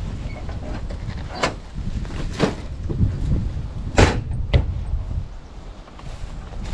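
Four sharp knocks or clunks, the loudest about four seconds in, over a steady low rumble of wind or handling noise on the microphone.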